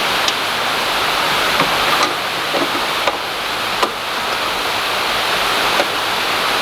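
Steady rushing background noise with a few light, short knocks and clicks of plastic being handled, as the coolant expansion tank is set onto its mounting guide.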